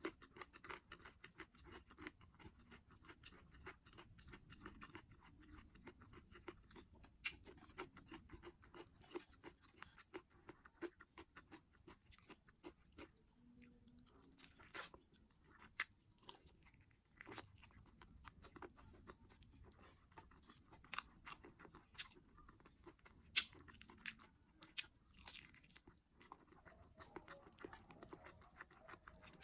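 Quiet, close-miked chewing and crunching of food, with many irregular sharp mouth clicks and occasional louder crunchy bites.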